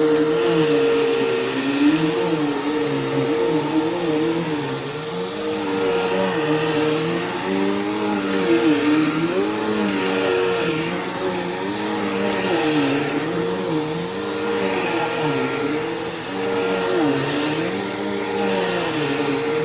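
Bissell PowerForce Helix upright vacuum cleaner running on carpet, with a steady motor hum and a thin high whine. A lower tone rises and falls every second or two as the cleaner is pushed back and forth.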